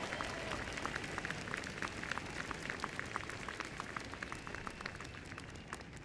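Crowd applauding: many scattered hand claps that thin out toward the end.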